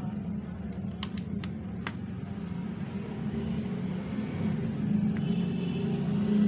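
A few light plastic clicks, four between about one and two seconds in, as an HP 36A toner cartridge is handled, over a steady low background rumble that grows a little louder near the end.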